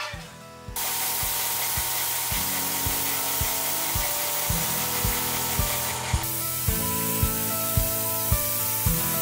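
Paint being sprayed onto the exoskeleton arm's parts: a steady hiss that starts about a second in and eases a little near six seconds in, over background music with a steady beat.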